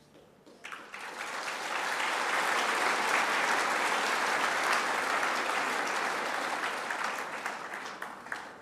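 Audience applauding: the clapping starts about half a second in, builds quickly, holds, then dies away near the end.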